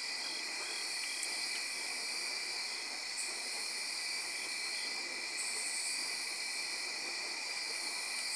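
Steady chorus of night-singing insects, a constant high-pitched drone in several pitch bands, with a still higher buzz joining in now and then.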